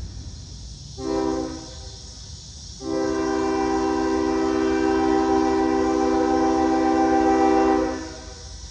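Multi-chime air horn of an approaching CSX diesel locomotive, sounded for the grade crossing. It gives a short blast about a second in, then one long blast of about five seconds, with several notes in a steady chord. A low rail rumble runs underneath.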